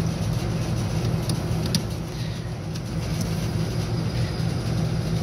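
Steady low hum of a rooftop air-conditioning unit running, with a few faint clicks.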